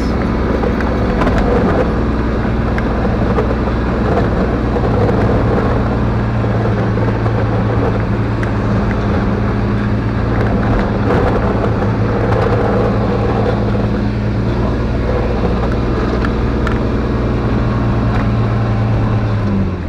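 Kubota diesel engine running steadily under load while plowing wet, heavy snow, with a constant rushing noise over the engine hum. The engine note drops near the end.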